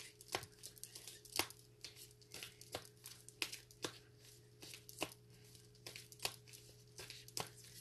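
A deck of reading cards being shuffled by hand: a string of sharp, irregular card snaps and clicks, about two or three a second, over a low steady hum.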